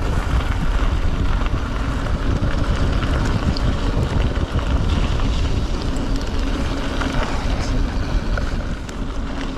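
Steady rushing noise of a mountain bike riding fast down a gravel track: tyres rolling over gravel, with wind buffeting the microphone.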